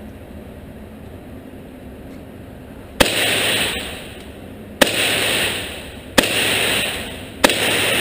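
A 9 mm handgun fired four times, starting about three seconds in, the shots roughly a second and a half apart, each a sharp crack followed by an echoing tail.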